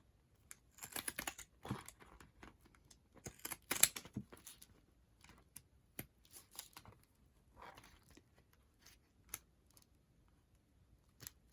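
Irregular light clicks, snips and paper rustling from handling and cutting paper craft materials, in scattered short bursts with quiet gaps between.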